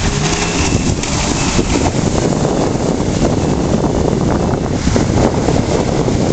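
Wind buffeting the microphone, a loud steady rumble, with the sea behind it.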